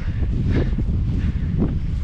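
Wind buffeting the microphone in a steady low rumble, with a few footsteps of someone walking uphill.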